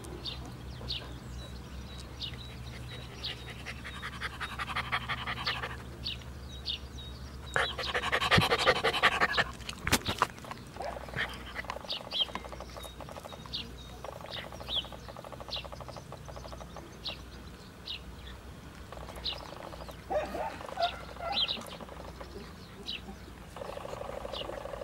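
A dog panting in several bouts, loudest about eight seconds in, over short high chirps that repeat throughout.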